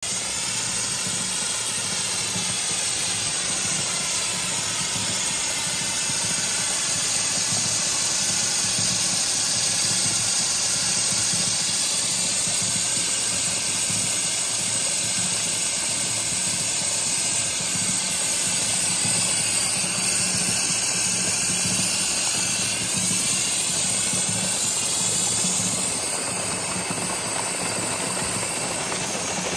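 Steady hissing rush of steam jetting from a wood-fired oil-drum boiler and water gushing from an electric pump's outlet pipe, over a low steady motor hum.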